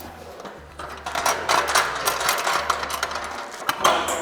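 Metal clattering and rattling as the lid of an empty stainless-steel kettle is unlatched and opened, with a quick series of sharp clicks.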